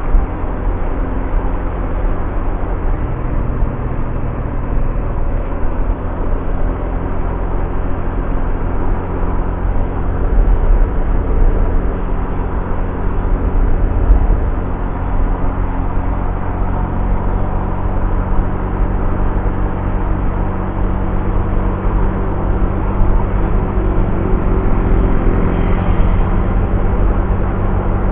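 Honda Vario scooter riding at steady cruising speed: its single-cylinder engine runs steadily under a heavy rush of wind on the camera's microphone.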